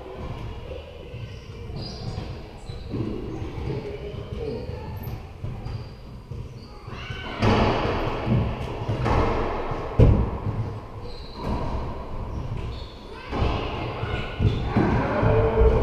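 Racquetball rally in an enclosed court: sharp, echoing cracks of the ball off racquets and walls, starting about halfway through and coming every second or two, with shoe squeaks on the hardwood floor.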